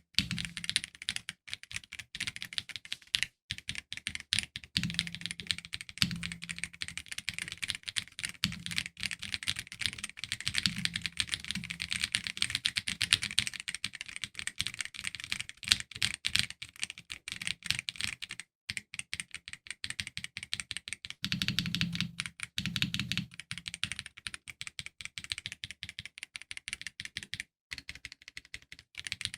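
Typing sound test on an Akko MOD007 v2 mechanical keyboard with Akko Red linear switches: rapid, continuous keystroke clacking, broken by a few brief pauses.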